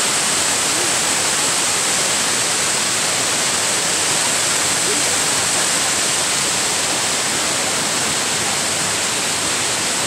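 Kuang Si waterfall: a steady rush of water pouring over its tiered cascades into the pools below.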